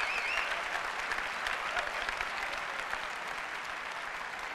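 A large auditorium audience applauding, a dense patter of many hands clapping that slowly eases off.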